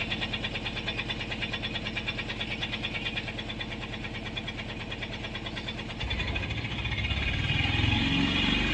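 Mahindra Jeeto BS6 diesel engine running with a steady, fast idle clatter. It gets louder and deeper about six seconds in.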